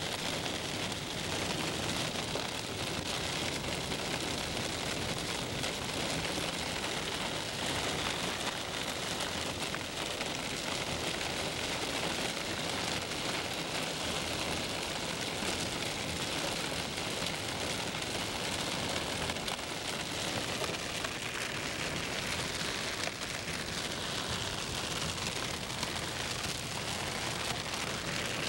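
Rain on the car and tyres on a wet road, heard from inside a moving car as a steady hiss.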